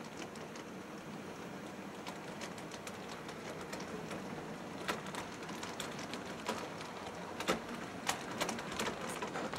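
HO scale model diesel locomotives running on the layout's track: a steady light rattle of motors and wheels, with sharp clicks of wheels over rail joints that come more often and louder in the second half as the train draws near.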